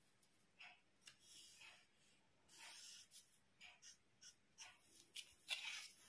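Faint scratching of a pen drawing lines on pattern paper, in a series of short strokes.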